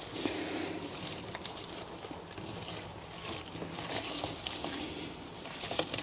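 Light metallic clicks and scraping as retaining clips are pushed onto the rocker arms on the rocker shaft of a BMW M20 cylinder head, with the parts handled by hand.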